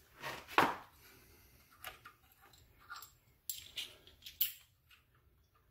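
Light metal clicks and scrapes from a bearing-press tool with a long threaded rod, handled by hand at the crankshaft end after its bolt has stripped. The loudest sound is a short rasp about half a second in; the clicks come scattered between about two and four and a half seconds in.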